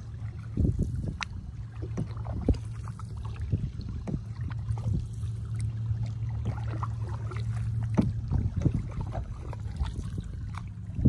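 A canoe being paddled: paddle strokes dipping into the water, with irregular small splashes and knocks against the hull over a steady low rumble.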